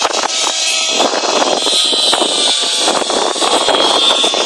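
Radio-controlled model airplane's motor and propeller giving a high, steady whine that wavers slightly in pitch as the plane climbs away after a hand launch.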